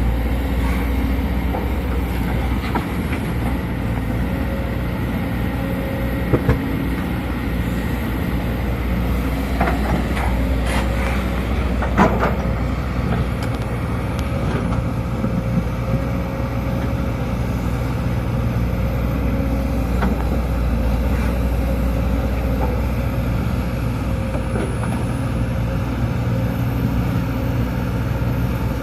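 Sumitomo SH210 hydraulic excavator's diesel engine running steadily under working load, with a few short sharp clanks about six, ten to twelve, and twenty seconds in.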